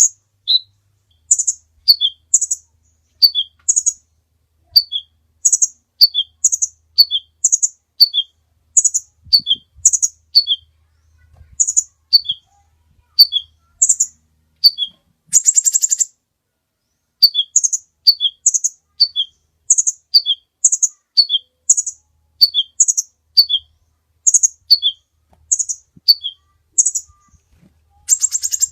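Kolibri ninja (a sunbird) singing a long run of short, sharp high chirps. Each phrase is a high note followed by two lower ones, repeated about once a second, with one longer buzzy note about halfway through.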